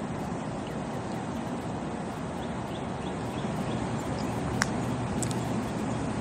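Steady background hiss with faint scattered chirps, and about four and a half seconds in a single sharp click: an 8-iron striking a golf ball in a short chip played with a putting stroke.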